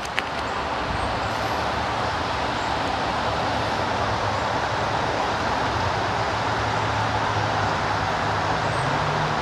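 Steady rushing of water flowing through a creek tailwater, with a faint low hum underneath.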